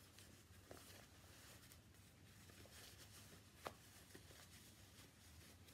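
Near silence: faint room tone with a few soft ticks, one a little clearer about three and a half seconds in.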